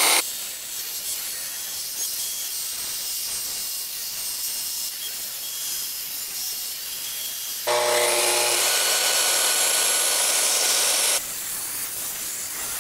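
Festool plunge track saw on its guide rail with a dust extractor hissing steadily through the hose. About eight seconds in the saw motor spins up with a rising whine, runs loud for about three and a half seconds cutting the wood flooring, then cuts off, leaving the extractor hiss.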